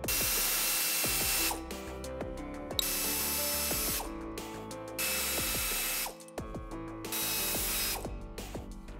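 Pneumatic air ratchet running in four bursts of about a second each, spinning out the water pump pulley bolts.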